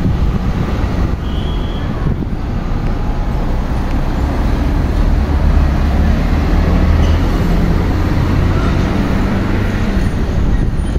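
Road traffic noise dominated by the low rumble of a motor vehicle's engine, swelling in the middle and easing off near the end.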